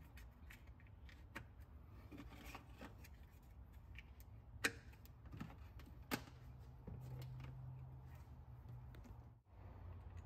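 Faint handling sounds: a few sharp clicks and taps as a battery cable and a rubber terminal cover are worked by hand, two sharper clicks around the middle, over a low steady hum.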